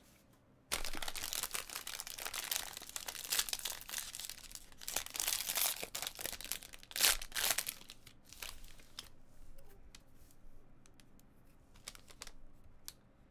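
Foil wrapper of a trading-card pack torn open and crinkled by hand, a dense crackling rustle. After about nine seconds it gives way to softer rustles and light clicks as the cards are handled.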